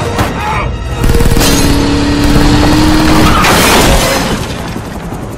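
Action-movie explosion sound effects: a loud blast about a second in, followed by crashing and shattering debris, mixed with a music score, dying down near the end.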